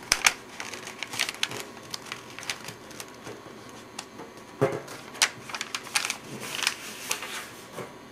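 A sheet of paper being folded and creased by hand: irregular rustling with many sharp little crinkling clicks.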